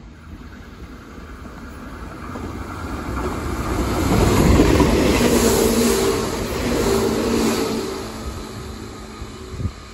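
Meitetsu 6000-series electric train running past the platform, growing louder to a peak about four to five seconds in and then fading as it moves away, with a steady hum of several tones over wheel-on-rail rumble while it is closest. A single sharp knock sounds near the end.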